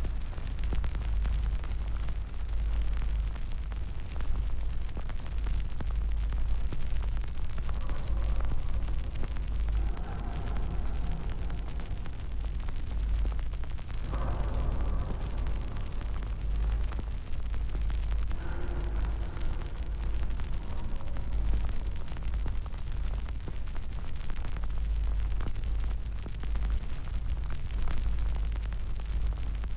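A fire burning: a steady low rumble with many small crackles and pops.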